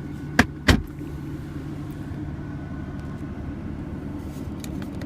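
Two sharp clicks about half a second in, from the center console storage compartment lid being handled, over the steady low hum of the BMW M4's idling engine heard from inside the cabin. A few faint clicks follow near the end.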